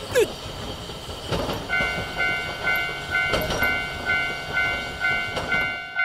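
Japanese railroad crossing warning bell ringing at about two dings a second, starting a couple of seconds in, over a passing freight train whose wheels give a few spaced knocks on the rail joints.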